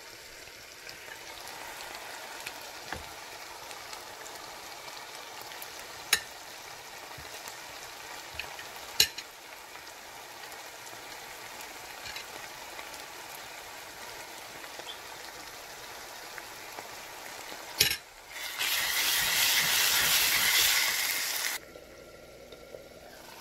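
Tomato and onion sauce sizzling steadily in a stainless steel saucepan, with a few sharp clinks of a spoon against the pan and plate as minced garlic goes in. Near the end a much louder hiss of sizzling swells for about three seconds and then cuts off suddenly.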